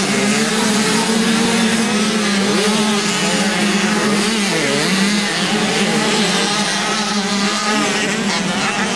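Engines of several youth motocross bikes running together as riders lap the dirt track, their pitch wavering with throttle, one dipping and rising again about halfway through.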